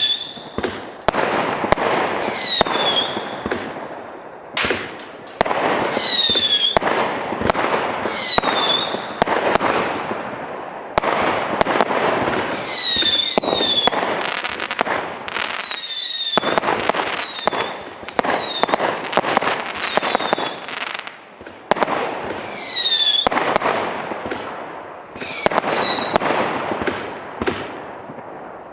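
Black Mamba 504-shot, 0.6-inch firework cake firing: a rapid, continuous string of shots and crackling bursts. Now and then a whistle falls quickly in pitch, and the barrage thins briefly a few times.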